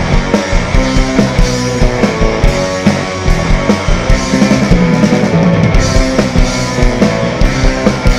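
Indie rock band playing live: a drum kit keeping a steady beat under guitars in an instrumental passage without singing.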